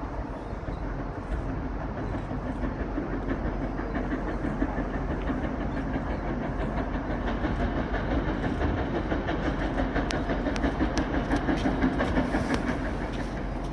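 Steam train hauled by LMS Coronation-class Pacific 6233 Duchess of Sutherland rolling in on arrival, wheels clattering over the rail joints. It grows louder as it draws near, peaking near the end.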